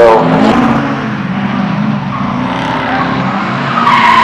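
Rally car engine revving hard, peaking right at the start, then running on at lower, steadier revs. Near the end a high, sustained squeal comes in as the tyres slide.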